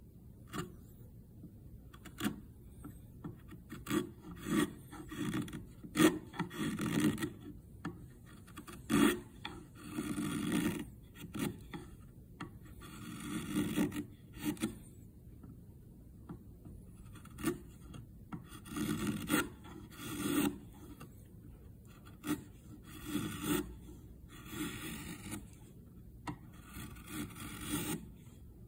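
Steel bench chisel pushed by hand, paring shavings off the corner of a hardwood cabinet face frame. It comes as an irregular series of short, crisp slicing cuts and longer scraping strokes of about a second each, with pauses between them.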